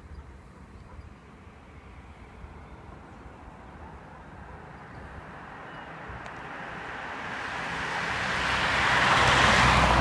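A road vehicle approaching, its tyre and engine noise swelling steadily over the last few seconds to a peak near the end as it passes.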